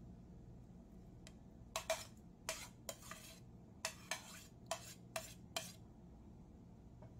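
Metal spoon clinking and scraping against a ceramic plate as sliced ham is pushed off it into a metal pan: about nine sharp clinks and scrapes from about two seconds in to nearly six.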